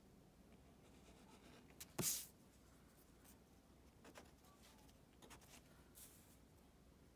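Green felt-tip marker writing and drawing on a paper worksheet: a few short strokes over near-silent room tone, the loudest about two seconds in.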